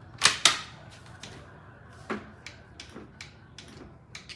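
Plastic and metal clacks and clicks from a lightweight double stroller's frame being handled: two loud knocks close together near the start, a lighter one about two seconds in, then several faint clicks.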